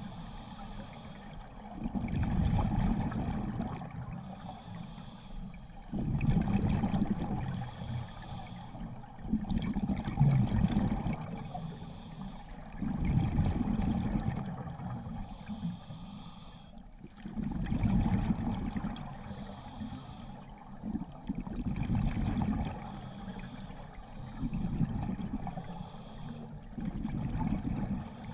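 A scuba diver breathing through a regulator underwater. Each breath is a short hiss on the inhale, then a louder low rumble and gurgle of exhaled bubbles, about one breath every four seconds.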